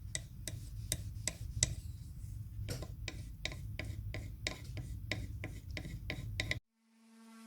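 Regular sharp clicking strokes, about three a second, over a low hum, typical of hand work with a tool. Near the end the sound cuts off and a small electric motor starts, its steady whine swelling.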